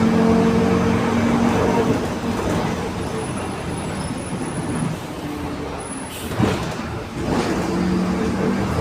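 Mercedes-Benz LO 916 bus under way, its OM924 LA 4.8-litre four-cylinder diesel running with a steady whine from a growling differential that fades after about a second and a half. Two short air hisses follow near the end, typical of the bus's air brakes.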